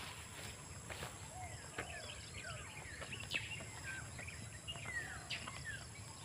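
Faint scattered bird chirps and short whistled glides over a steady high insect drone.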